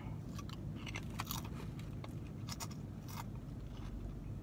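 A person biting and chewing a crunchy potato chip, with irregular crisp crunches, over a steady low hum.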